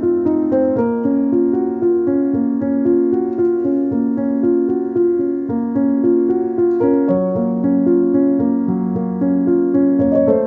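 Background music: a gentle piano melody with sustained notes that change about once a second.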